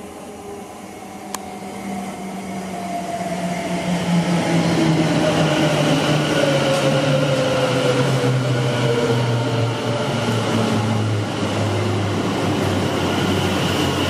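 Class 730 Aventra electric multiple unit running in alongside the platform and slowing. Its traction motors whine in several tones that fall slowly and steadily in pitch as it brakes, and the sound grows louder over the first four seconds as the train draws level.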